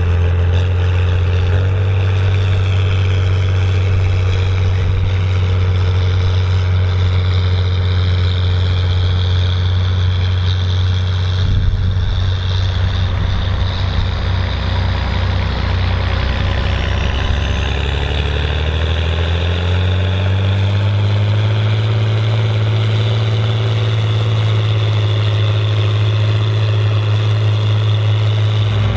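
Volvo BM 814 tractor's diesel engine running steadily under load while pulling a six-furrow plough through a field. About two-thirds of the way through, its pitch rises and then holds at the higher speed.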